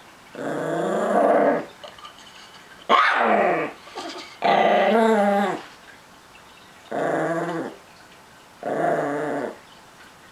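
Small dog, a Chihuahua–miniature pinscher mix, growling in five drawn-out bouts of about a second each with short pauses between: possessive growling over its treats.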